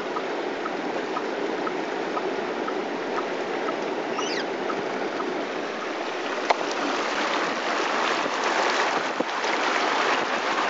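Vehicle driving through shallow floodwater on a road, its tyres making a steady rush and splash of water that grows louder about two-thirds of the way through.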